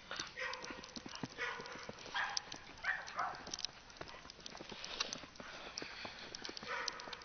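Footsteps crunching through snow: a string of short, uneven crunches roughly every half second to second.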